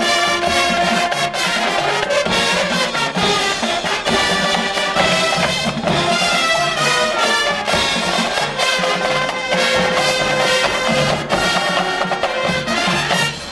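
Marching band playing at full volume: massed brass with drums keeping a steady beat. The music drops away sharply at the very end.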